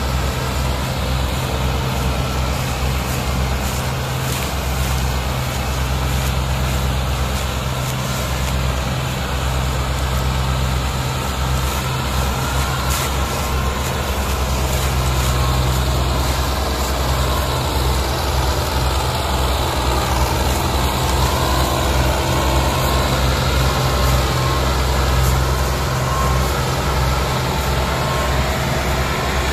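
Ford 3610 tractor's three-cylinder diesel engine running steadily under load as it hauls a heavily loaded sugarcane trolley, a low pulsing engine note that grows a little louder about halfway through.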